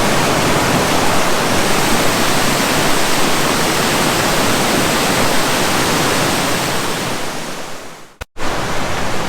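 Steady rush of a fast mountain creek cascading over rocks. It fades out about eight seconds in, breaks off for a moment, then comes back at full level.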